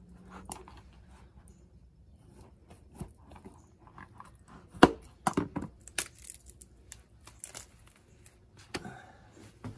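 Knife trimming the skin off a beaver tail on a plastic cutting board: irregular scrapes and tearing with sharp taps of the blade on the board, the loudest just before halfway.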